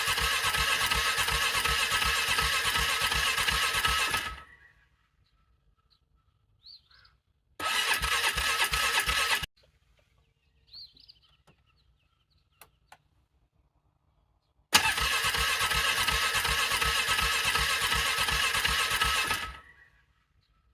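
ATV engine cranked over on its electric starter in three attempts, a long one, a short one about 7 seconds later and another long one, each with a steady starter whine and a rapid rhythmic chug. The engine turns over without catching: a struggling cold start in freezing weather.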